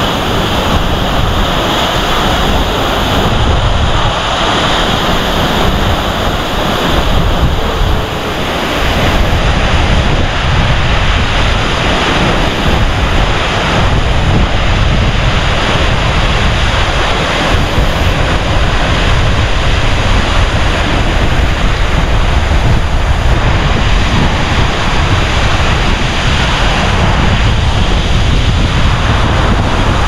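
Gitgit waterfall's very strong flow crashing down: a loud, steady roar of falling water, with wind rumbling on the microphone.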